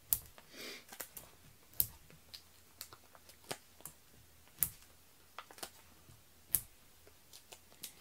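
Scattered small clicks and taps of hands working with cardstock, as foam adhesive dimensionals are peeled from their sheet and pressed onto a cardstock panel. Four sharper clicks stand out among the softer ones.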